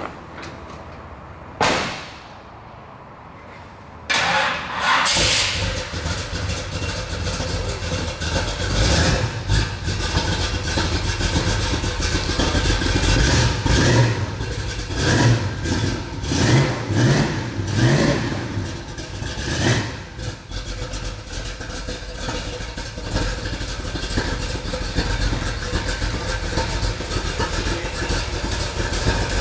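A car door shuts, then the 1966 Chevrolet Fleetside pickup's V8 starts about four seconds in. It is revved several times, then settles to a steady idle.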